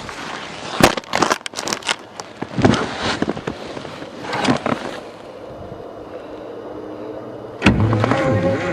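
Knocks, clunks and scrapes on the snow-covered bulldozer's controls, then about three-quarters of the way through its engine turns over and catches, running steadily after a sudden loud start.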